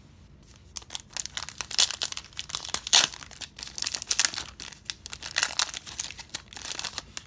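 A 2017 Donruss Optic football card pack's wrapper being torn open and crinkled by hand: a rapid, irregular crackling that starts about a second in and goes on until near the end.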